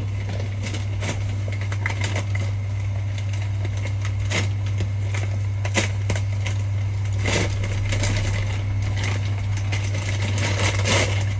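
Brown paper mailer bag crinkling and tearing as it is handled and ripped open by hand, in irregular crackling rustles that are loudest a little before halfway and near the end. A steady low hum runs underneath.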